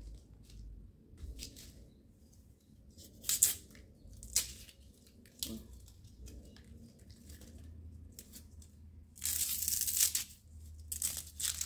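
Bamboo shoot sheaths being peeled and torn off by hand: a few short, sharp tearing rasps, then a longer tear lasting about a second near the end.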